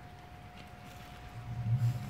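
Sulcata tortoise biting into bell pepper, a few faint crunches. A low steady droning hum comes in about two-thirds of the way through and is the loudest sound.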